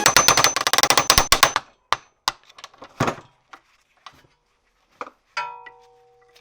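Hand tools working on a steel pedal assembly during disassembly: a rapid run of clicks for about a second and a half, then scattered knocks, and near the end one clank of metal that rings out and slowly fades.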